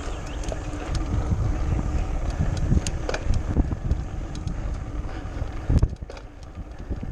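Wind buffeting an action camera's microphone while a mountain bike rattles and jolts over cobblestone paving, with uneven knocks throughout and one heavier thump about six seconds in.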